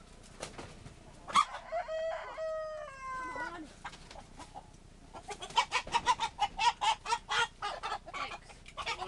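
A rooster crows once, a call of about two seconds that falls in pitch at its end. From about five seconds in comes a fast run of loud clucking squawks, several a second, as the chickens are being caught.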